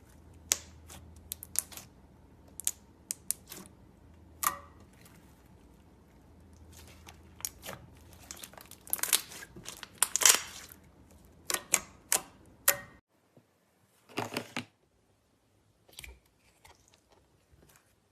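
Slime being handled and mixed: a string of sharp sticky clicks and short crackly pops, busiest and loudest about two-thirds of the way through, with a last short burst after a pause.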